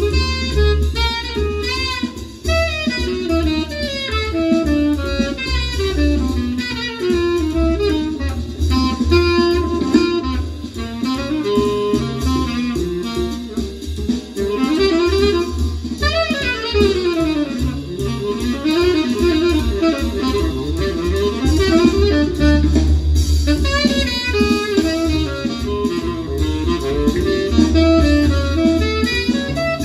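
Recorded jazz with a saxophone-like wind lead, guitar and bass, played back through Holimar 3/8 loudspeakers driven by a NAD 304 amplifier and picked up in the room. The lead plays fast running phrases about halfway through.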